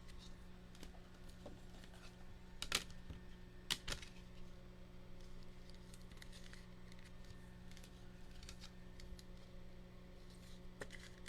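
Faint clicks and slides of trading cards being handled and laid down, with two sharper clicks a few seconds in, over a steady low hum.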